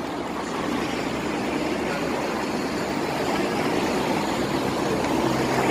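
Steady street traffic noise, with vehicle engines running close by.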